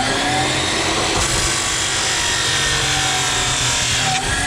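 A power tool running under load, its pitch sagging and recovering in slow arcs.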